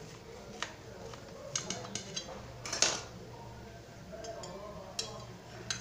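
Metal utensil clinking and scraping against a metal baking pan: scattered light clinks, with one louder, longer scrape a little before halfway through.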